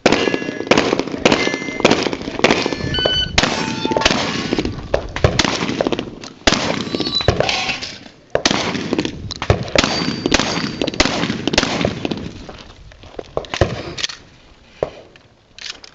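Strings of rapid gunshots in quick succession, broken by a few short pauses, with high ringing pings from struck steel targets after some of the shots.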